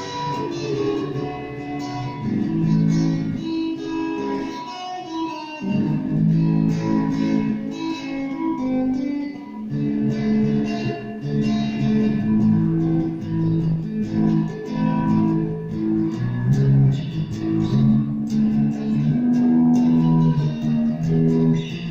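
Revelation RJT60 electric guitar played through a Vox Tonelab modelling amp, loosely improvising held notes and chords that change every second or so, with a short gap just before six seconds in.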